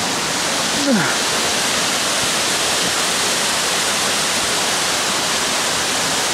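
Steady rush of a nearby mountain waterfall, an even wash of falling-water noise that holds at one level throughout.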